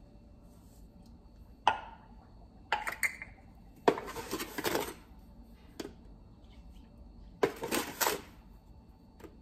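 Granulated sugar being measured and poured into a glass mixing bowl: a sharp clink with a short ring about two seconds in, a few light knocks, then two hissing rushes of about a second each as the sugar goes in.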